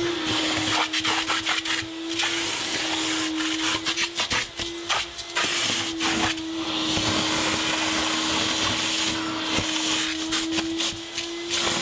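Vacuum cleaner running while its hose nozzle is worked over a laminate countertop. A steady motor hum shifts slightly in pitch a few times under a constant hiss of suction. Short clicks and scrapes come as the nozzle rubs the counter and pulls up crumbs and debris.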